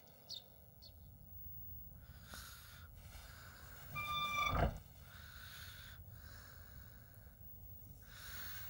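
Quiet animated-film sound effects: a few soft whooshes over a low steady rumble, with a short pitched tone and a low thump about four seconds in, the loudest moment.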